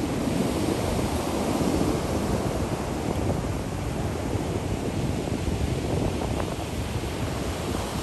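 Ocean surf washing steadily onto the beach, with wind rumbling on the microphone.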